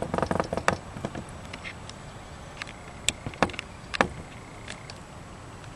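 Steady faint outdoor background noise with a few scattered light clicks and ticks.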